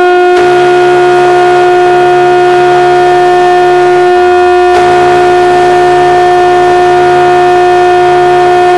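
Cruise liners' ship horns blowing one very loud, long, steady blast. A deeper horn sounds under it and drops out briefly about four seconds in.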